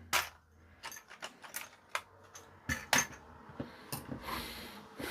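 Scattered sharp clicks and light knocks of small hard plastic and metal parts being handled, with a short rustle about four seconds in.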